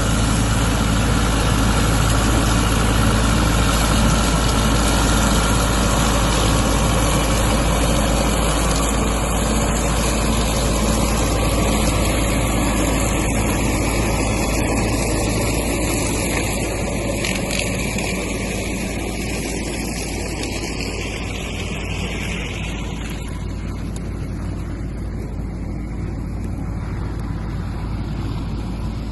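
Tractor engine running steadily while pulling a seed drill that sows wheat into unploughed ground; the engine grows gradually a little quieter in the second half.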